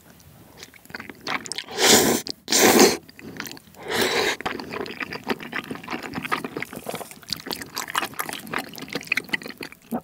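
Close-miked eating of wheat-flour tteokbokki rice cakes in a thick spicy sauce: three loud wet slurps about two, three and four seconds in, then steady sticky, wet chewing.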